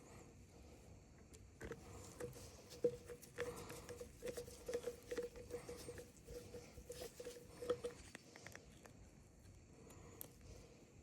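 Light clicks, taps and scratching from small parts being handled while a chainsaw is worked on, with a faint mid-pitched tone pulsing on and off between about two and eight seconds in.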